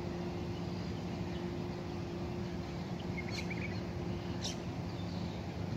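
Steady low background hum with a few brief bird chirps about three seconds in, and two short sharp ticks a second apart.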